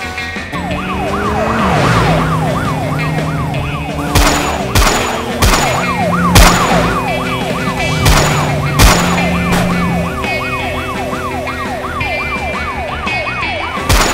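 Police siren in a fast yelp, sweeping up and down about three times a second, with a string of sharp pistol shots starting about four seconds in, over background music.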